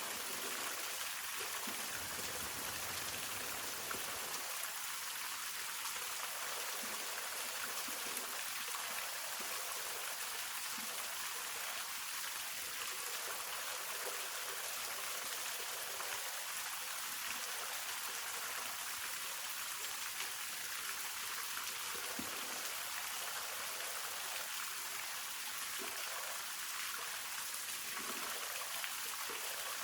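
Hongryu Falls, a waterfall, with water falling and splashing in a steady, even hiss that is mostly high-pitched with little low rumble.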